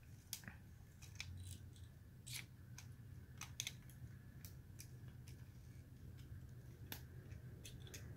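Faint, irregular clicks and snaps of hard plastic parts of a Tobot V transforming toy robot as a child's hands fold and fit its body section.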